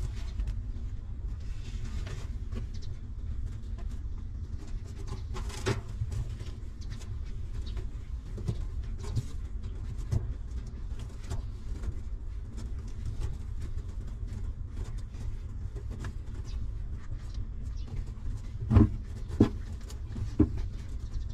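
Newborn puppies suckling at their mother, faint scattered clicks and smacks over a steady low rumble, with a few louder thumps near the end.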